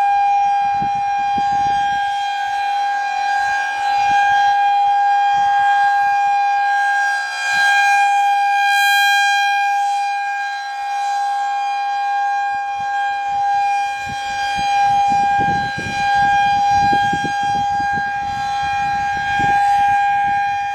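Federal Signal 2001-SRN rotating outdoor warning siren sounding a steady single tone at full speed, swelling and fading about every four seconds as the rotating horn sweeps past. A low rumble joins in over the last few seconds.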